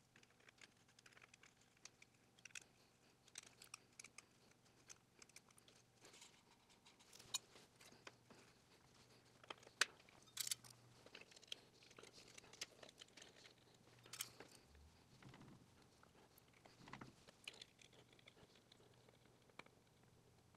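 Mostly quiet, with scattered faint clicks and light taps from hand work on small parts, a few sharper ones about ten seconds in: a 3D-printed carbon-fiber nylon mount being fitted and bolted to the underside of a lathe DRO read head.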